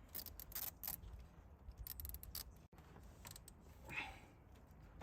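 Nylon cable ties being fed and pulled tight, a scattered run of faint small ratcheting clicks and rasps, with one slightly louder short sound about four seconds in.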